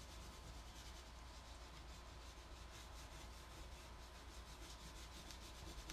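Faint scratchy rubbing of an oil pastel stick on drawing paper, in quick repeated strokes as an area is colored in.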